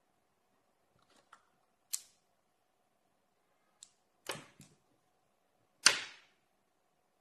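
Magnetic pen segments and 17 mm steel balls snapping together as a magnet lattice is assembled by hand: a scatter of sharp metallic clicks, the loudest near the end.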